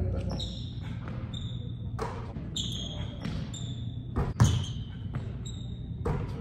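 A basketball bouncing on a hardwood gym floor and striking the rim, with basketball sneakers squeaking in short chirps as players cut and stop. The hall echoes, and the loudest thump comes about four and a half seconds in.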